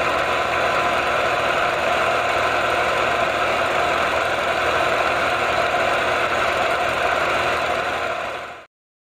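Film projector running steadily, a continuous mechanical sound that cuts off suddenly near the end.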